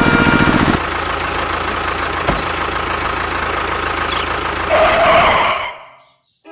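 A small engine running with a fast, even pulse, which cuts off abruptly under a second in to a steadier mechanical noise with a single click about two seconds in. Near the end a louder rasping noise rises briefly, then everything fades out.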